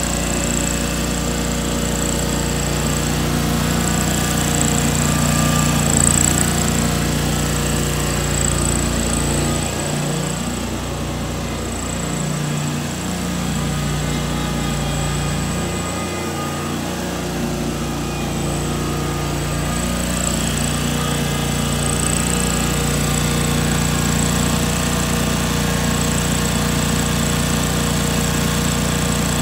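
John Deere X485 garden tractor's 25-horsepower liquid-cooled Kawasaki fuel-injected engine running steadily as the tractor is driven around. The engine note wavers a little partway through, and a thin high whine sits above it throughout.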